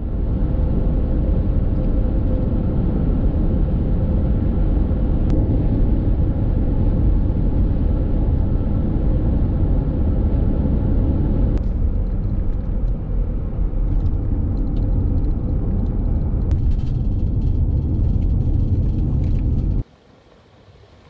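Subaru Outback driving at highway speed: steady road and engine noise heard from inside the cabin. The noise changes character about halfway through and cuts off suddenly about a second before the end.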